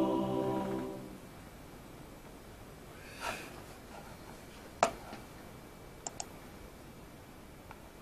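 Background music fading out within the first second. Then a quiet room with one sharp click about five seconds in and a quick double click about a second later, typical of pointer buttons clicked to open a window on the laptop.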